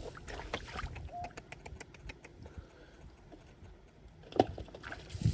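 Splashing and sloshing in shallow muddy water, with a run of small clicks in the middle and one sharp splash about four and a half seconds in.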